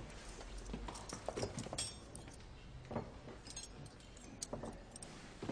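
Metal teaspoons and a small glass handled on a cloth-covered table, giving a few light clinks and clicks spread through a low background hum.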